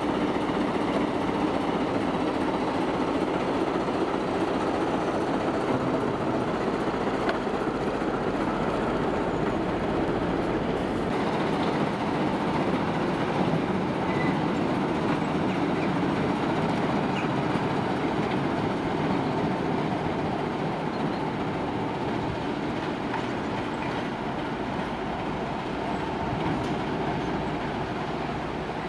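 TEM18DM diesel shunting locomotive running as it rolls slowly along the station tracks, a steady engine and rail rumble with some wheel clatter, easing off slightly toward the end as it moves away.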